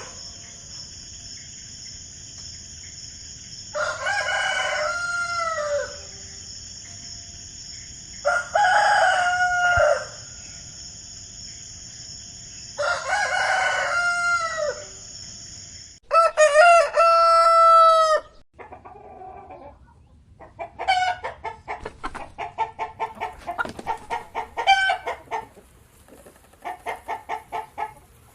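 Rooster crowing three times, about four and a half seconds apart, over a steady high-pitched hiss. About sixteen seconds in the recording changes to a louder rooster crow, followed by rapid, repeated chicken clucking.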